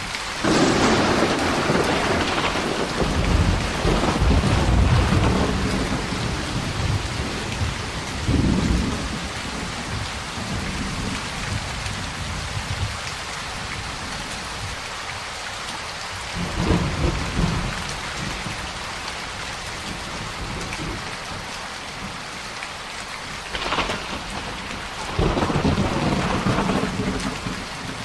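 Steady heavy rain with rolls of thunder: a loud crack and long rumble right at the start, a shorter one a little past the middle, and another near the end.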